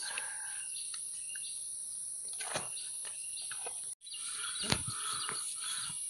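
Forest ambience: a steady high-pitched insect drone with a few faint bird chirps and light clicks, broken briefly about four seconds in.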